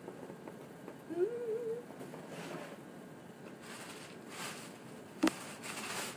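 A cardboard box and its packed contents being handled: soft rustles and scrapes, a brief hummed note about a second in, and one sharp knock about five seconds in.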